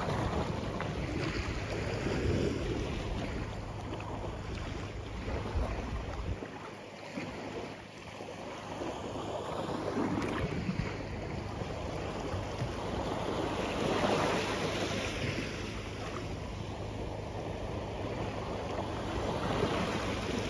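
Steady rushing noise of flowing water and wind, swelling and easing every few seconds, with a few faint ticks.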